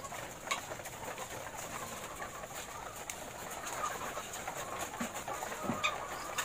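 A large flock of caged laying hens clucking and murmuring together, with a few scattered sharp clicks.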